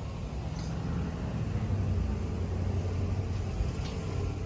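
Steady low hum of a moving road vehicle heard from inside, engine and road noise, with a few faint ticks.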